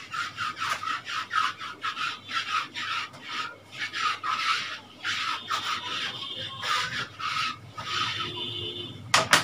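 Whiteboard eraser wiped briskly back and forth across a whiteboard in quick strokes, about two a second. A sharp knock a little before the end.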